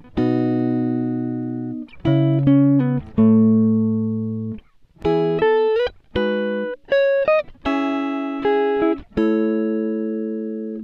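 Background music: a plucked guitar playing slow chords and single notes, each ringing out and fading, with a few sliding notes.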